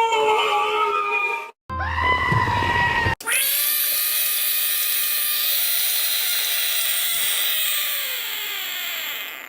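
A string of cartoon character scream sound effects cut back to back: one scream ends abruptly about a second and a half in, a second short scream runs for about a second and a half, then a long shrill scream holds for about six seconds and fades near the end.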